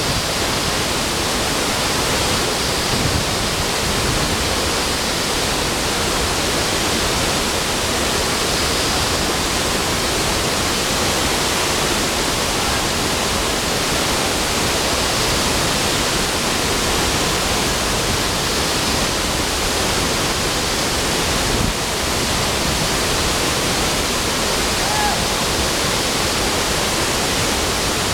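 Steady, dense rush of a large waterfall pouring into its plunge pool, with the churning water of the pool below.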